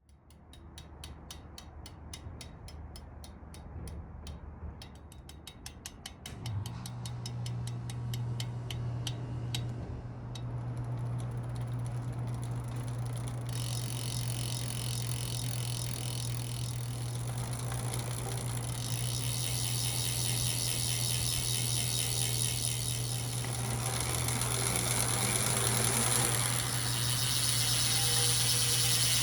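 Roval Rapide CLX40 rear hub's freehub ratcheting as the wheel spins on a stand. Separate clicks quicken and merge into a continuous high buzz about halfway through, over a low steady hum from the spinning wheel and drivetrain from about six seconds in.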